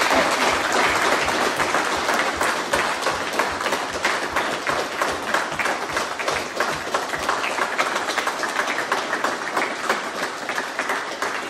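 A group of about twenty people applauding, a dense steady clatter of hand claps that slowly dies down toward the end.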